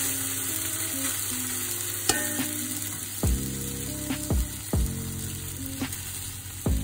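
Parboiled basmati rice being spooned into melted butter in a metal pot, the butter sizzling. The slotted spoon knocks sharply against the pot about five or six times from about two seconds in.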